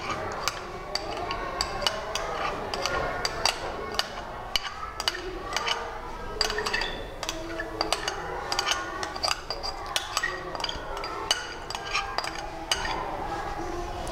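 Spoon scraping and clinking against the inside of a glass bowl, a quick run of sharp clicks as thick cream is scraped out into a glass dish.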